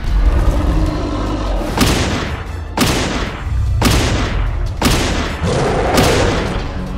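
Cartoon fight sound effects: a deep booming thump, then a series of about five sharp impacts roughly a second apart, each trailing off.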